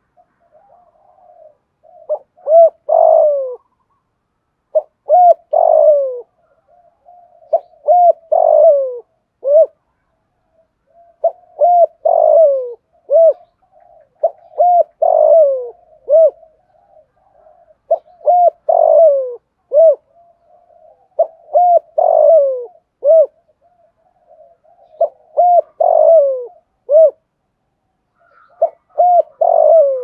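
Spotted dove giving its repeated cooing song, the 'thúc gù' style, in a full low 'giọng thổ' voice. A phrase comes about every three and a half seconds: a few short notes, then a longer note falling in pitch, then a short closing note. Soft low cooing fills the gaps between phrases.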